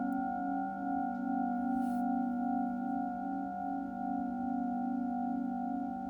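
Singing bowls ringing in a long sustained tone, several pitches at once with a slow wavering beat.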